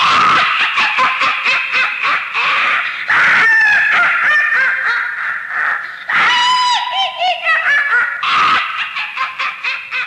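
High-pitched witch's cackling laugh, a rapid run of pulses that starts suddenly, with squealing pitch glides about six to seven seconds in.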